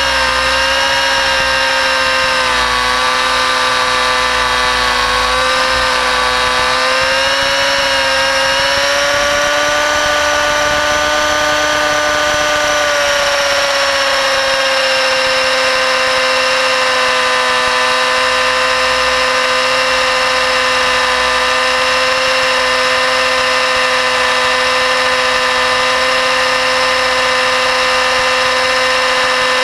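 A 600-size nitro RC helicopter's glow engine running in flight, a loud, steady, high-pitched whine. Its pitch wavers slightly over the first half and then holds steady.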